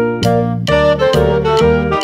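Background music with a steady beat, about two beats a second, carried by keyboard-like notes.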